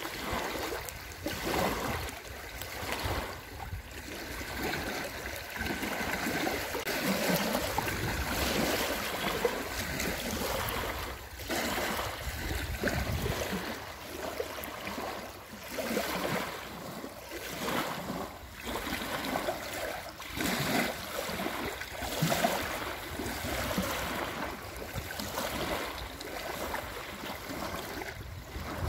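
Small lake waves lapping and splashing on a sandy shore, coming in uneven surges every second or two.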